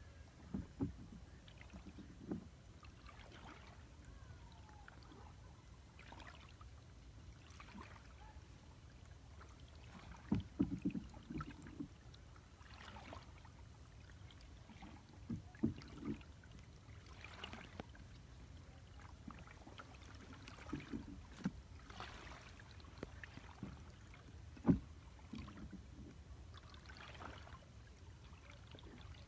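Small boat moving slowly through calm water. There are quiet splashes and knocks every few seconds over a low, steady rumble, with the loudest knocks about ten seconds in and near the end.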